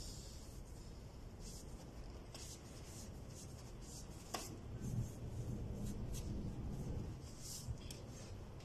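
Faint rustling and rubbing of hands handling work, with scattered short swishes and one sharp click about four seconds in.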